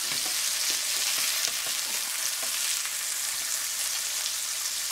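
Ground-beef slider patties sizzling in butter in a hot skillet, a steady high hiss. A slotted spatula scrapes and taps against the pan a few times in the first couple of seconds as the patties are flipped.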